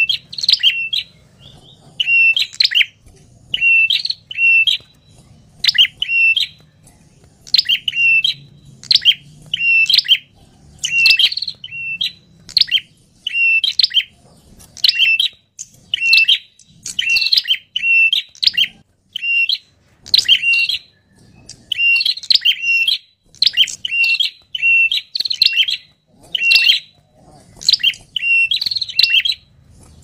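Ashy tailorbird (prenjak kepala merah) calling excitedly, its noisy agitated calling used as a lure sound for wild tailorbirds: short, sharp, high chirping phrases repeated about once a second without letting up.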